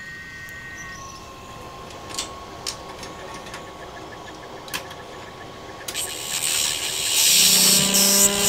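Horror-film sound design: a faint steady tone with a few sharp clicks, then about six seconds in a loud hissing, buzzing swell rises, with a low hum joining near the end.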